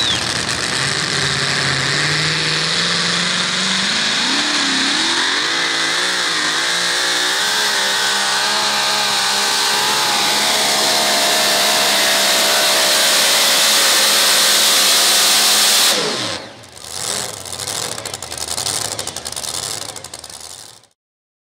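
Supercharged engine of a super modified two-wheel-drive pulling truck at full throttle under load from the sled, its pitch climbing over the first several seconds and then holding high and steady. About sixteen seconds in it cuts off suddenly and winds down, followed by a few seconds of quieter, uneven sound.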